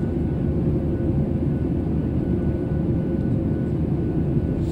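Cabin noise of a Boeing 737-800 airborne just after takeoff: the steady low roar of its CFM56-7B turbofan engines and the air rushing past the fuselage, with a faint steady whine above it.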